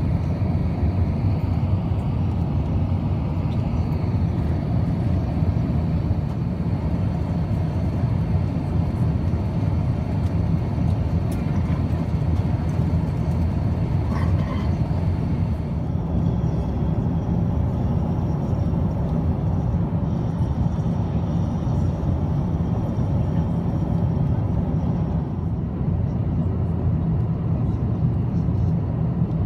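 Airbus A350-900 cabin noise in cruise: a steady, loud, low rumble of airflow and the jet engines, unchanging throughout.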